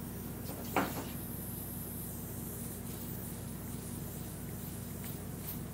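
A refrigerant can being handled on its can-tap valve: one light knock about a second in, over a steady low hum and a faint hiss from the can-tap fitting leaking refrigerant.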